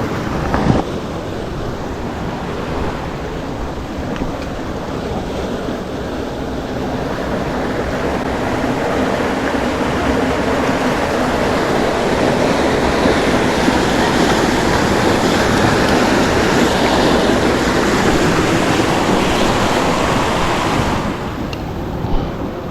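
Steady rushing of flowing creek water, swelling slowly and dropping away near the end.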